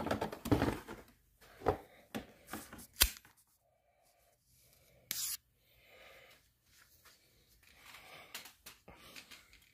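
Handling noises: several sharp clicks and knocks in the first three seconds, a short scrape about five seconds in, then faint rustling, as a hand moves over the ATV's plastic fender around the newly fitted accessory sockets.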